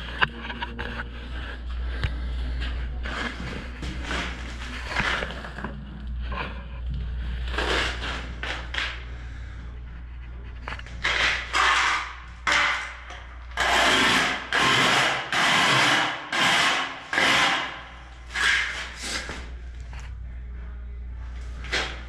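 Scraping strokes of a tool over sand-cement mortar: quieter scraping at first, then a quick run of about ten loud strokes, each under a second, in the second half. A steady low hum lies underneath.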